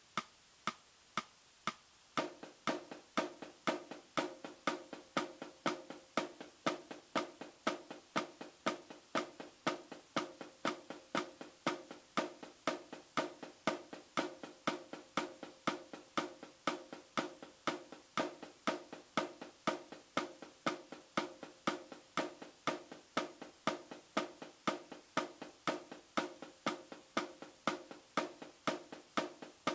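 Snare drum played with sticks in a steady eighth-note stream, loud accented strokes alternating with soft taps: the accent-and-tap stick-height exercise played one hand at a time. The strokes are soft for the first two seconds, then settle into the even accent-tap pattern.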